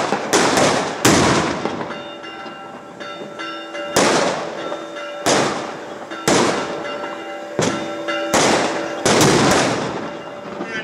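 Firecrackers and fireworks going off, about ten loud echoing bangs at uneven spacing with a pause of about two seconds after the first few, while church bells ring steadily underneath.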